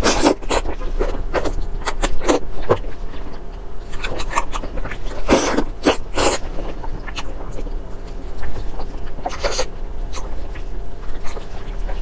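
Close-miked eating of braised pork trotters: wet, irregular smacking, sucking and chewing mouth sounds as meat is bitten and sucked off the bone, with a few louder clusters. A steady low hum runs underneath.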